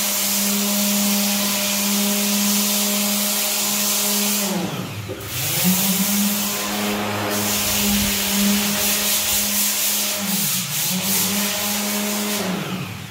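Corded electric power tool abrading the concrete render around a window opening: a steady motor whine over a gritty scraping hiss. Its pitch falls away about four seconds in and winds back up, then sags again near the end as the sound dies down.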